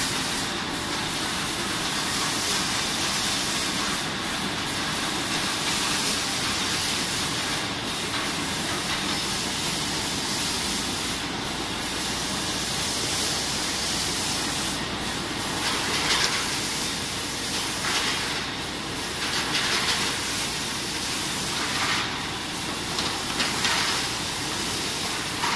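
Sidel SBO 10 rotary stretch blow moulding machine running in production, forming PET bottles: a loud, steady machine noise dominated by a high hiss. The hiss dips briefly about every three and a half seconds, with a few sharper, louder blasts in the second half.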